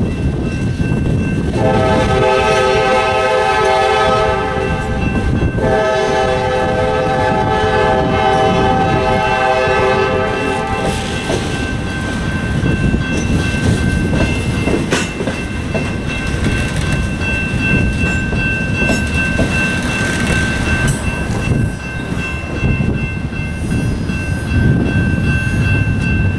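Train of loaded scrap gondolas rolling through a grade crossing, the wheels clattering over the rail joints. A diesel locomotive horn sounds two long blasts from down the line, the first about two seconds in and the second, longer one ending about eleven seconds in. The crossing's electronic bell rings steadily throughout, and there is a single metallic clank midway.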